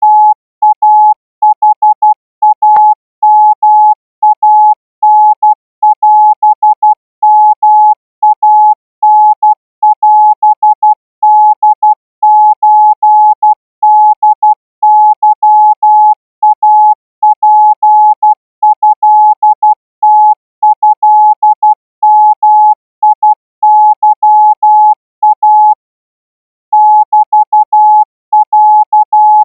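Thai-alphabet Morse code sent as a steady mid-pitched keyed tone at 16 words per minute, short and long marks in even groups. There is a faint click about three seconds in and a pause of about a second near the end.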